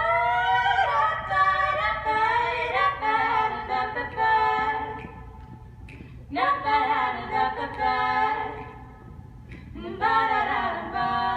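Female voices singing in harmony, unaccompanied, in three phrases separated by short pauses.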